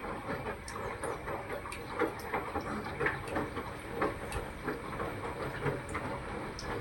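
Samsung washing machine running with a steady rattling clatter: a dense run of irregular clicks and knocks over a constant hiss.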